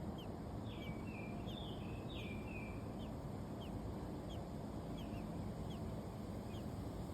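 Small songbirds chirping at the nest: short high downward chirps repeated through the clip, with a run of longer, stepped whistled notes about one to three seconds in, over a steady low background rumble.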